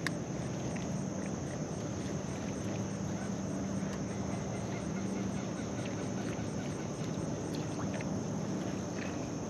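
Insects shrilling steadily in high pitch, with a faint pulsing chirp about twice a second, over a low steady hum.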